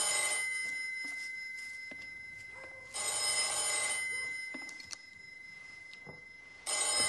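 Telephone ringing: three rings about a second long, one already sounding at the start, one about three seconds in and one near the end, each fading out after it stops.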